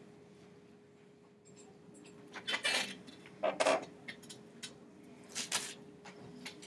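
A pig heart and dissecting tools being set down on a plastic dissection tray: three short clatters and scrapes, about two and a half, three and a half and five and a half seconds in, with a few lighter ticks. A faint steady hum runs underneath.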